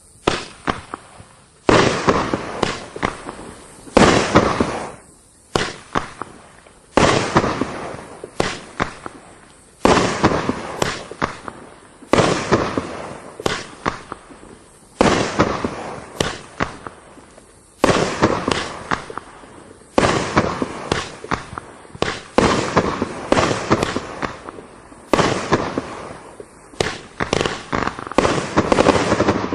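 Winda "Get Ur Motor Runnin" multi-shot firework going off. About a dozen loud shots come every two to three seconds, and each is followed by a burst of crackling pops that dies away.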